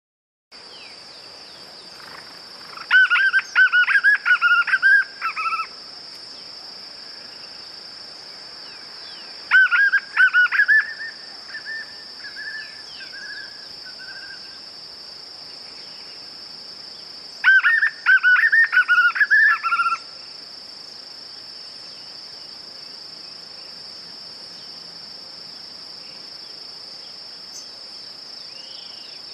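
White-eared puffbird (joão-bobo) singing three bouts of rapid, rising and falling whistled notes, each lasting two to three seconds, the second trailing off into softer notes. A steady high insect drone runs underneath.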